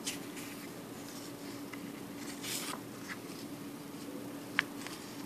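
Polymer banknote being handled and turned over: faint rustles and crinkles of the plastic note, with one sharp tick about four and a half seconds in, over a steady low hum.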